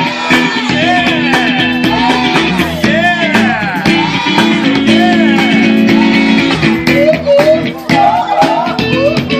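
Music: a lead guitar plays bending, sliding notes over held low chords and bass, with no words.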